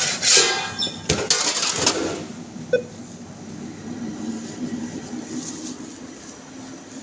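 Sandwich toaster oven being loaded and run: a clatter of metal handling and the door shutting over the first two seconds, a short beep just under three seconds in, then the oven's steady low hum as it toasts.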